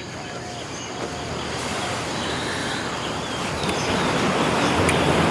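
Ocean surf rushing steadily and growing louder, with a few faint bird chirps in the first second.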